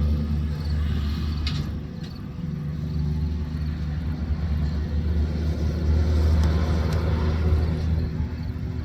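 Engine of a GMC fire rescue truck rumbling as it rolls out, swelling around six to seven seconds in, with no siren sounding.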